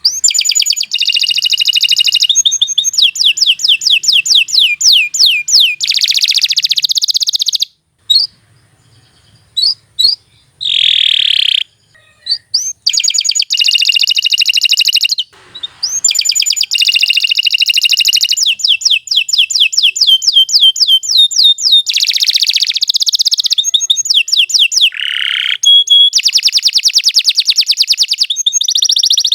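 Domestic canary singing long, loud song phrases made of fast trills and rapidly repeated high notes. It breaks off briefly about a quarter and about halfway through.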